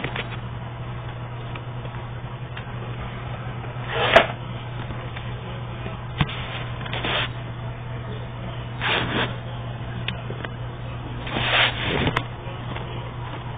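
Paper pages of a pop-up book being handled and turned: several brief rustles and flaps of card, over a steady low hum.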